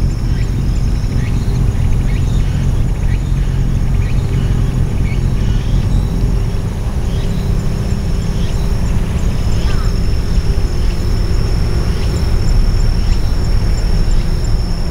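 Steady low outdoor rumble, like distant traffic or wind, with scattered short high chirps and a faint steady high whine above it.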